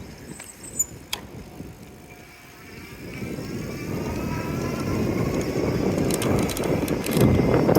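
Bicycle ride heard through a handlebar-mounted phone: wind and tyre rumble that grow steadily louder over the second half as the bike picks up speed, with a couple of sharp clicks about a second in.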